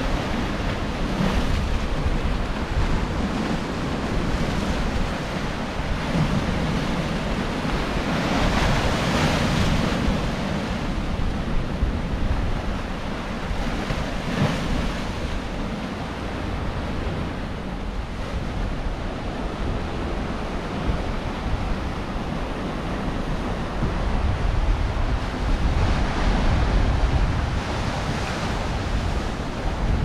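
Baltic Sea waves breaking and washing over a rocky shore and stone breakwater, a steady rush of surf that swells louder now and then as bigger waves come in.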